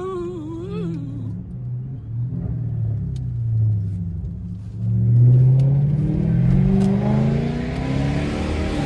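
Lexus GS430's 4.3-litre V8 running with no catalytic converters, heard from the driving car. About five seconds in it gets louder and its pitch rises steadily as the car accelerates.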